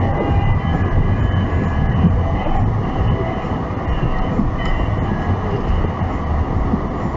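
Steady road rumble and running noise heard inside a moving car's cabin, with a pulsing low drone underneath.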